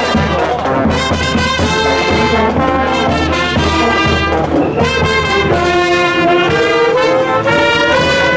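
Brass marching band playing a tune in sustained, held notes.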